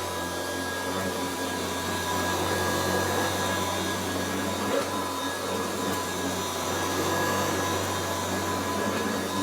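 Kirby Classic III upright vacuum cleaner running steadily: a low motor hum with a steady high whine over it. The machine is fitted with new bearings.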